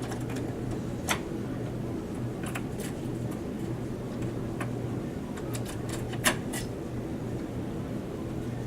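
Light clicks and knocks from hands handling parts inside an open desktop computer case while the CPU cooler is being taken out, over a steady low hum. The two sharpest clicks come about a second in and about six seconds in.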